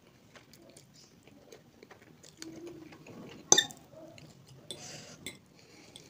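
Close-up chewing and biting of spicy instant noodles, with small wet clicks throughout. About three and a half seconds in, a sharp clink of the metal fork against the plate is the loudest sound, and a short breathy hiss follows about a second later.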